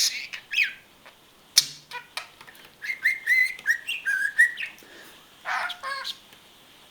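Pet budgerigar (parakeet) chattering and warbling: quick chirps and clicks, then a run of short warbled whistles about three seconds in, and a final burst of chatter near the end.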